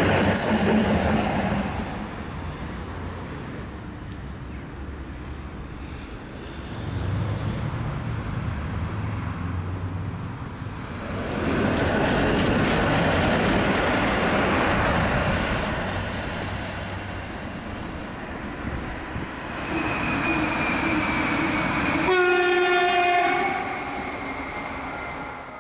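City trams passing on ballasted track: the rumble and rattle of wheels on rails swell and fade as each tram goes by, loudest at the start and again through the middle. Near the end comes a short, steady pitched horn-like tone.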